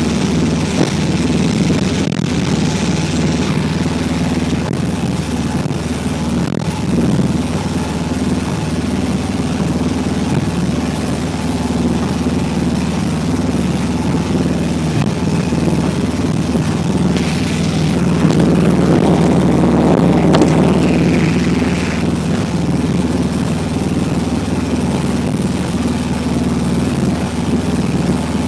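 Boat engine running steadily, heard from on board as a low drone with a steady hum of even tones. It swells louder and rougher for a few seconds about two-thirds of the way through.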